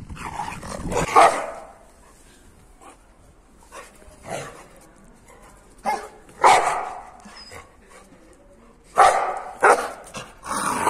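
Pit bull-type dog barking in loud separate barks, a few seconds apart at first and coming quicker near the end.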